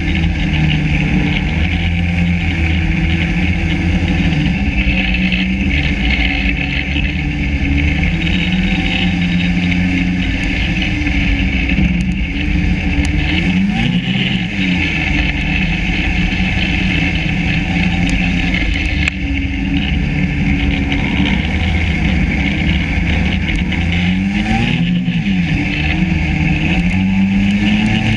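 Yamaha SRV 540 snowmobile's two-stroke engine running steadily under load, its speed briefly rising and falling twice, about halfway through and near the end.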